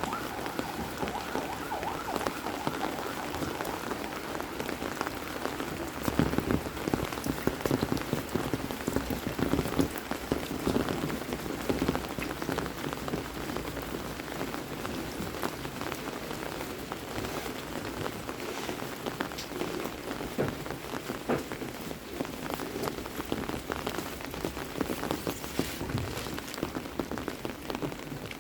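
Heavy rain falling steadily, with many individual drops pattering close by.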